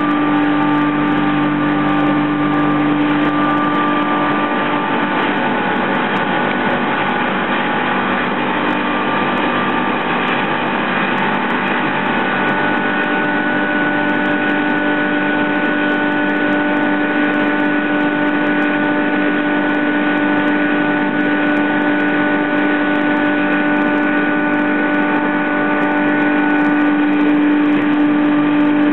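Sandblasting cabinet in use: a loud, steady rush of compressed air and abrasive from the blast nozzle, with a steady hum through it.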